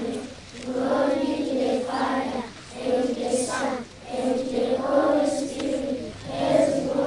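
Group of schoolchildren chanting a prayer together in unison, in short sung phrases with brief pauses between them.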